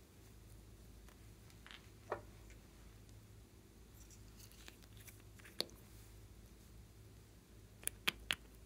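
Small plastic cosmetic containers being handled: a few light, isolated clicks and taps, then three sharp clicks in quick succession near the end as the plastic cap is worked off a glitter container.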